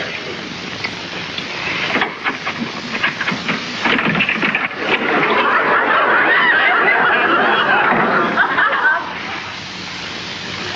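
Sitcom audience laughter, a laugh track: it swells about four seconds in, stays loud, and drops away about nine seconds in.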